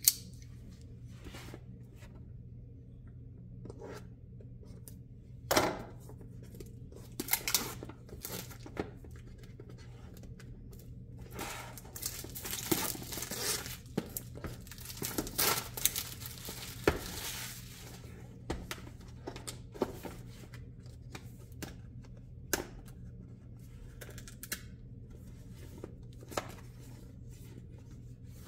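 A cardboard retail box being opened by hand: tearing and rustling of the packaging, loudest a little past the middle, with scattered sharp clicks and knocks.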